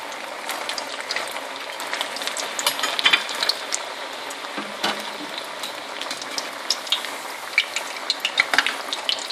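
Mutton keema kebabs deep-frying in hot oil in a steel pan: a steady sizzle with frequent crackling pops, and a slotted spoon stirring in the oil near the end.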